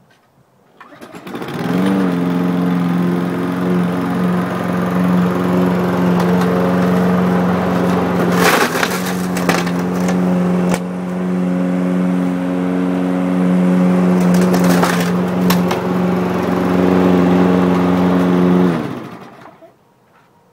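Toro walk-behind gas lawn mower engine running steadily. It comes up to speed about a second and a half in and winds down near the end. Sharp cracks come near the middle and again a few seconds later as the blade strikes and breaks up a Nikon CoolPix camera.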